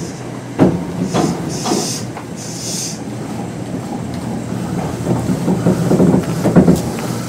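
Kintetsu 2610 series resistor-controlled electric train running: wheels clack over rail joints above a steady hum of the traction motors and gearing. A few short hisses come about one to three seconds in.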